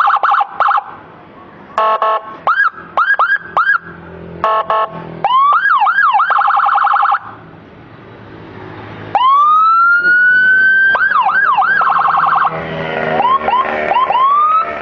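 Whelen WPA112 electronic siren module through a 15-watt TOA horn speaker, cycling through its tones: short stacked horn blasts, quick falling chirps and a fast warble, then after a brief pause a long wail that rises and holds, followed by repeated rising whoops.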